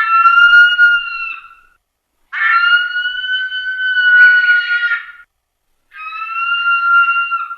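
Bird calling in long, steady, whistle-like drawn-out notes, each lasting two to three seconds, with short silent gaps between them: one ends about a second and a half in, another runs from about two to five seconds, and a third starts near the six-second mark.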